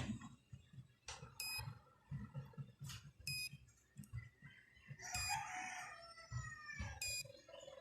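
A rooster crowing in the background, one long call with falling pitch about five seconds in, among short high chirps that come about every two seconds, over soft low handling thumps.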